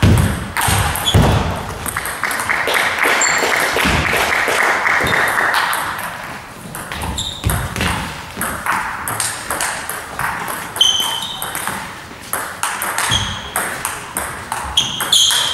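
Table tennis rally: the ball clicking sharply off the table and the rubber-covered bats in quick alternation, each hit with a brief high ping, keeping on for the whole exchange.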